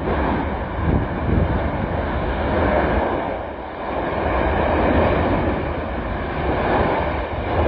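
Continuous deep noise of the Tajogaite volcano's erupting vent as lava fountains from the cone. It swells and eases every few seconds, with no separate blasts.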